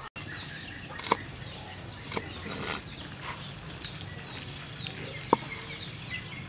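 Birds chirping over a steady background, with three sharp knocks of a steel cleaver on a wooden cutting board, the loudest about a second in.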